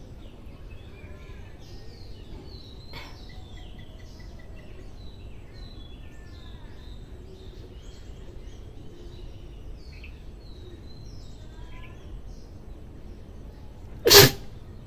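Birds chirping in the background, short high calls on and off, then near the end a woman sneezes once, loud and abrupt.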